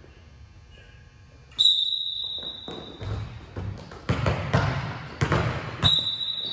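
A sharp whistle blast about a second and a half in, then basketballs bouncing and thudding on a hardwood gym floor, several in quick succession, with a second whistle blast near the end.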